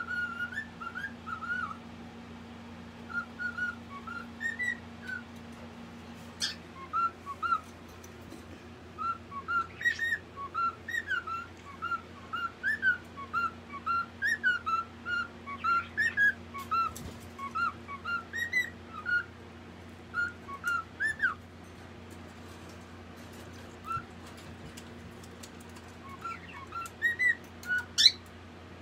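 Caged pet parrot whistling a long string of short chirping notes in bursts, with pauses between them. A few sharp clicks are mixed in, the loudest near the end, over a steady low hum.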